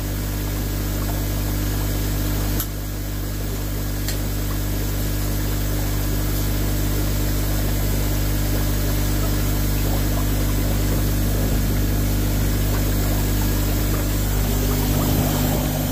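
A 70-litre-per-minute air pump aerating an Easy Pod koi filter: a steady hum with the water bubbling and churning hard through the filter media, as the media is air-scoured during a filter clean. A brief click about two and a half seconds in.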